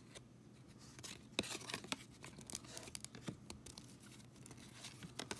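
Baseball trading cards handled in a hand-held stack: faint, scattered papery clicks and slides of card stock as cards are flicked from front to back.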